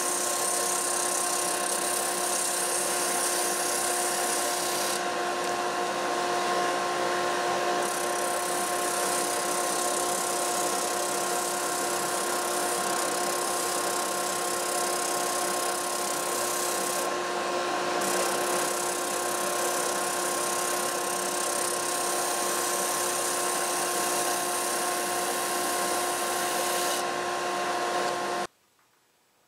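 Shopsmith Mark 7 running in under-table mode, spinning a 2-inch drum sander while a template's inside curve is sanded against the drum, with the dust collection drawing through the hood. A steady machine whine over a constant rushing noise, which cuts off suddenly near the end.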